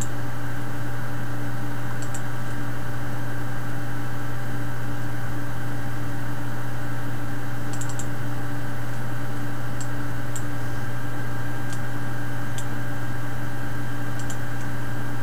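A steady low electrical hum runs throughout. Over it come a dozen or so faint, scattered clicks of a computer mouse.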